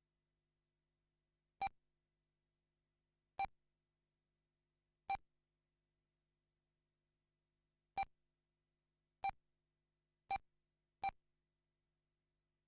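Short electronic beeps from a race lap-timing system, seven in all at uneven spacing with silence between. Each beep marks a car's transponder being logged as it crosses the timing line.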